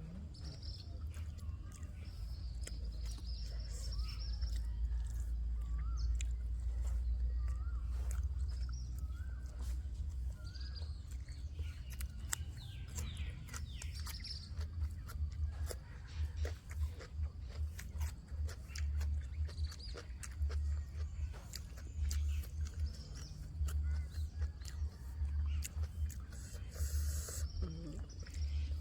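Birds chirping in short, wavering calls, over a steady low rumble and scattered small clicks.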